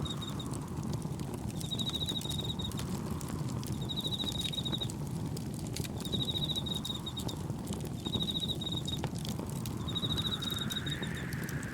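Crickets chirping in short trilled bursts about every two seconds, over a campfire's crackle and pops and a steady low rush of wind and gentle waves. A whooshing swell rises and fades near the end.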